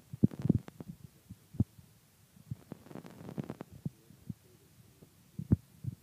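Irregular soft low thumps and clicks, a few a second and uneven in strength, with the strongest about half a second in and near the end.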